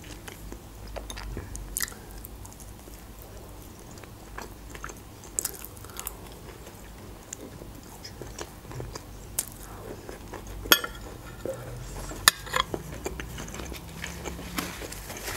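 Close-miked chewing and wet mouth sounds of a person eating chopped meat cutlets and tomato. Late on, two sharp clicks of a metal fork against the dishes, about a second and a half apart.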